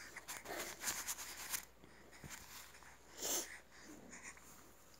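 Soft rustling and small clicks as a baby's clothes and diaper are handled, with a short breathy sound, like a sniff or exhale, about three seconds in.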